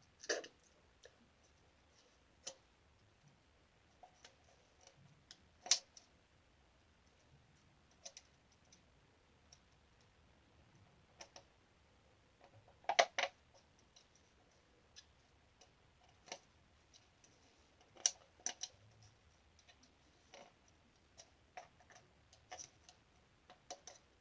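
Scattered light clicks and taps from objects being handled, with quiet gaps between them and a short cluster of taps about halfway through.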